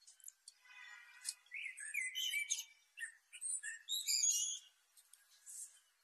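Male common blackbird singing. A low, warbled phrase about half a second in is followed by a longer run of high, quick, squeaky twittering notes that stops around four and a half seconds in.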